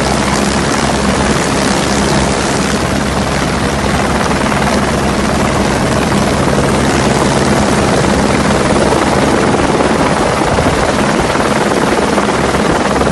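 Helicopter rotor and engine running steadily, heard up close from on board as it hovers low over water: a loud, even rushing noise with a steady low drone underneath.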